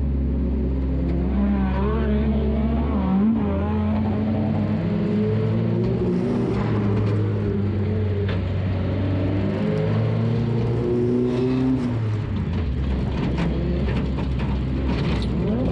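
Race car engine heard from inside the car, running hard on track, its pitch stepping up and down to new steady levels several times as the throttle and gears change. Sharp knocks and rattles sound now and then in the second half.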